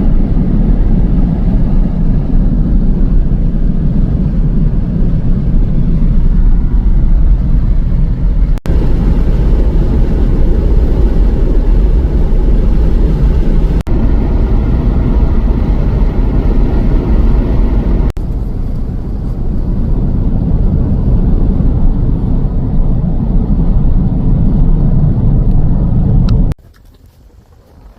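Car driving along a road: a steady low rumble of road and wind noise, in several spliced stretches, that drops away suddenly near the end.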